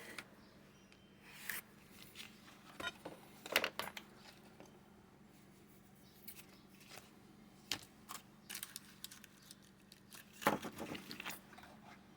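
Scissors cutting through a thin sheet of clear plastic laminate: irregular snips and crinkles of the sheet, with a burst of quick cuts near the middle and another near the end.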